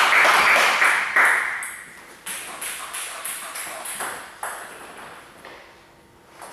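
Celluloid-type table tennis ball clicking off bats and table in a rally, two or three sharp hits a second, ringing in a large hall. A loud burst of noise fills the first second and a half.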